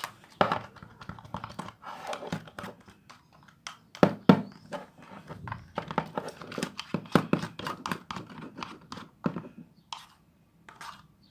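Clear glue slime being stirred as it thickens with boric acid: irregular sticky squelches, clicks and knocks against the container, pausing briefly near the end.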